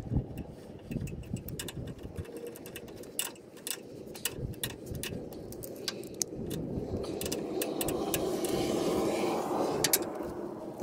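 Scattered small metallic clinks and taps of parts and tools being handled at a cast-iron pumping-unit gearbox. A louder rushing noise swells up about two-thirds of the way through and drops away near the end.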